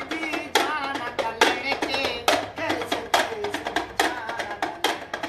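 Sharp, dry drum beats at an uneven pace, about one or two a second, with a wavering singing voice between them.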